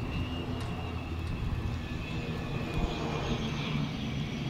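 Cessna 208 Caravan's single PT6A turboprop taxiing at low power: a steady propeller drone with a high turbine whine that slowly falls in pitch.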